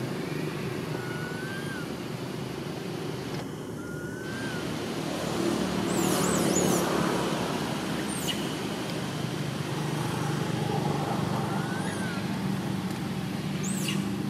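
Steady rumble of road traffic, swelling about five to seven seconds in, with a few short high-pitched chirps and whistles over it.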